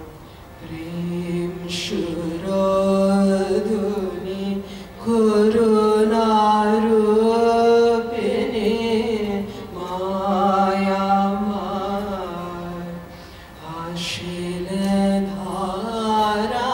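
A man singing a devotional chant to a harmonium, in long held notes over the harmonium's steady drone, with brief pauses near the start and about two-thirds of the way through.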